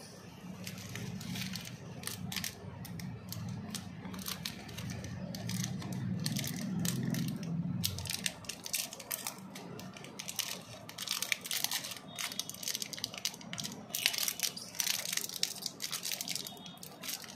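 Chocolate wrappers crinkling, crackling and tearing as the sweets are handled and unwrapped. A low hum runs underneath and stops about eight seconds in.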